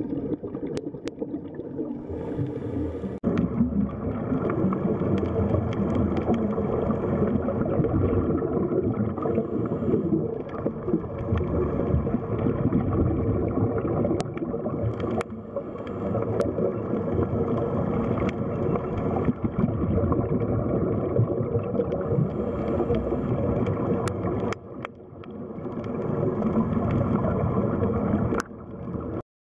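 Underwater ambient noise: a steady low rushing of water, with scattered sharp clicks and a brief dip near the end.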